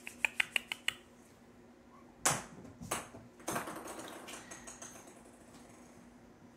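A ping pong ball bouncing on a hardwood floor: a quick run of about six light, ringing clicks in the first second. Then a few louder knocks and scattered light ticks follow as the ball is knocked about.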